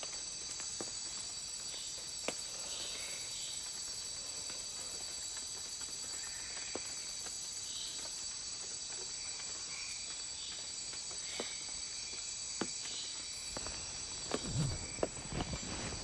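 Nighttime insect chorus of the Amazon rainforest: a steady high drone of several held tones, with scattered faint chirps and a few clicks. Some rustling near the end.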